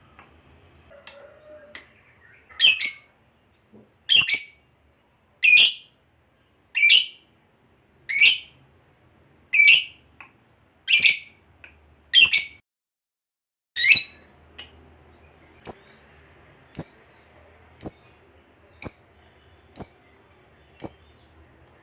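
Fischer's lovebird giving single sharp chirps, one about every second and a half. From about halfway they turn into shorter, higher, quieter chirps about once a second.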